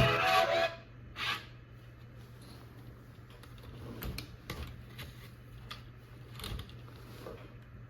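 Dance music from a robot dog toy's speaker stops under a second in. Then come scattered light clicks and knocks from the toy over a faint steady hum.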